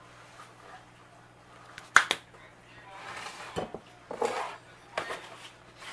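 Kitchen handling clatter: a sharp clack about two seconds in, the loudest sound, then a few rustles and light knocks as dishes and containers are moved about on the counter.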